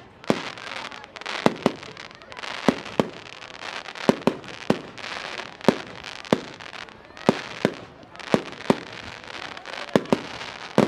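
Fireworks display: aerial shells bursting in a steady string of sharp bangs, one or two a second, with a rapid flurry of bangs at the very end.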